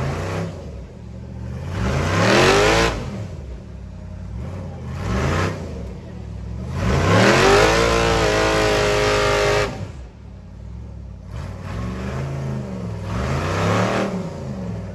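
Off-road race buggy engine revving hard in repeated surges, the pitch climbing and dropping each time. There are short surges near the start and at about two and five seconds, one long rev held high from about seven to ten seconds, and two more surges near the end.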